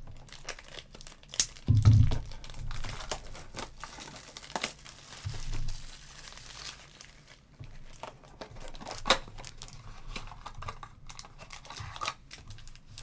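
Plastic shrink wrap crinkling and tearing as it is slit and peeled off a trading-card hobby box, followed by the cardboard box being opened. There is a dull knock about two seconds in.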